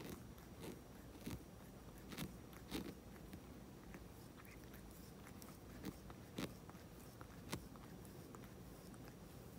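Domestic tabby cat grooming itself close up, its tongue licking its paw and fur: faint, irregular wet clicks and smacks, a few of them louder.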